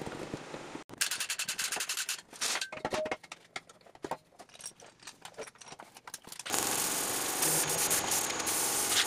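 Workshop machine noises: a fast run of clicks about a second in, then scattered knocks, then a steady machine noise with a thin high whine from about six and a half seconds in.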